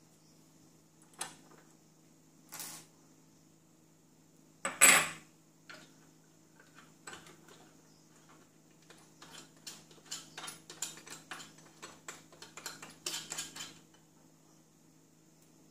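Small metal clicks and clinks of a hand tool and screws on a Meade LX90GPS telescope's base as screws are taken out: a few scattered clicks, one loud clank about five seconds in, then a quick run of small clinks near the end.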